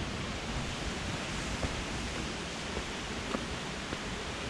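Waterfall rushing: a steady, even roar of falling water, with a few faint clicks.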